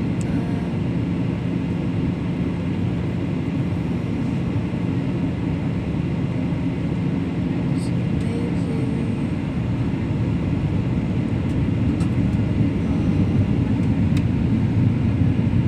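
Steady low cabin drone of an airliner in flight, the engine and airflow noise heard from inside the passenger cabin, growing a little louder in the last few seconds.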